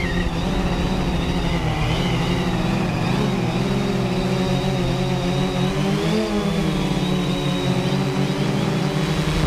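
3DR Solo quadcopter's electric motors and propellers buzzing steadily, heard from the camera on board. The pitch shifts slightly as the drone adjusts throttle, with a brief rise and fall about six seconds in.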